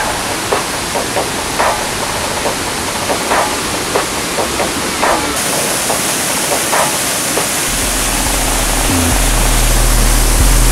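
Waterfall and stream water rushing over boulders: a steady noise with scattered short clicks. Background music with a deep steady bass comes in about eight seconds in.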